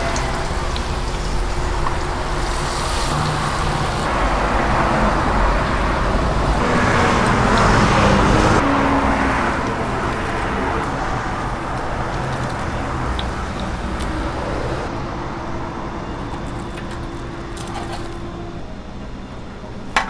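Batter-coated skewers deep-frying in a wide pan of hot oil: a steady sizzling hiss. It swells about halfway through and grows quieter over the last few seconds.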